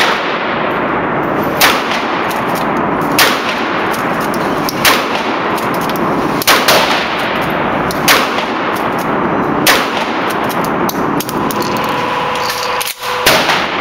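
Mossberg 500 Cruiser pistol-grip pump-action shotgun firing seven shots, mostly about a second and a half apart with a longer pause before the last one near the end. Each blast rings off the indoor range's concrete walls.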